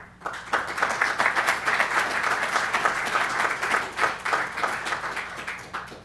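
Audience applauding in a lecture room, starting just after the start and dying away near the end.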